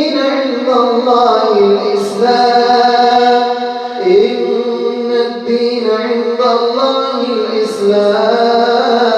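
A man's voice reciting the Quran in a slow, melodic tajweed chant. He holds long drawn-out notes that glide and step between pitches, with only brief consonants between them.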